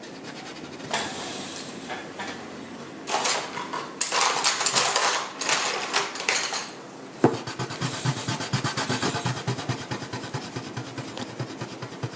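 Eraser rubbing on drawing paper. Separate scrubbing bursts come first, then from about seven seconds in a fast, steady back-and-forth scrubbing with a plastic eraser.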